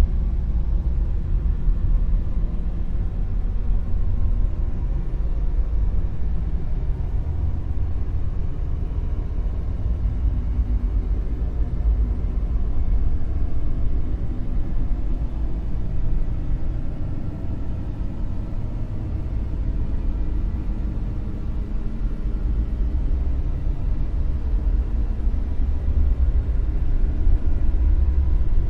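Dark noise: a steady, deep rumbling hiss with its weight in the bass and little treble. It eases slightly past the middle and swells again near the end.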